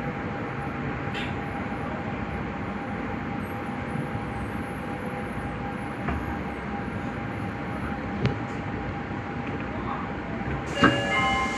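Subway train running through a tunnel: steady rumble with a constant electric hum from the running gear. Near the end it gets louder and a cluster of several high ringing tones sets in.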